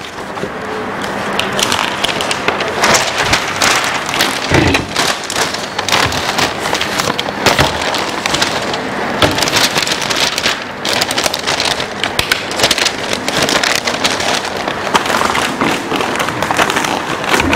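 Large flip-chart paper sheets rustling and crackling loudly as they are handled and flipped up over the top of the easel: a dense, continuous crackle of many small clicks.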